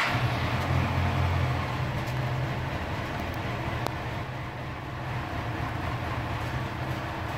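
2009 Kawasaki Ninja ZX-10R's inline-four engine just after starting, idling steadily. It is a little louder for the first second or two, then settles.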